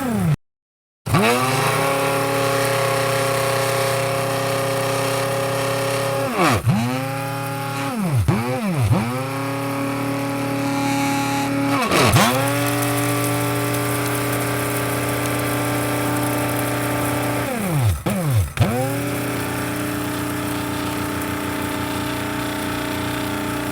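Electric coffee grinder motor running with a steady whine. It stops for under a second near the start and spins back up. It is then switched off and on several times, the pitch dropping as the motor slows and climbing again as it restarts, twice in quick succession around the middle and again later.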